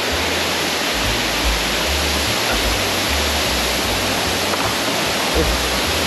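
Waterfall: a steady, even rush of falling water, with irregular low rumbles on the microphone.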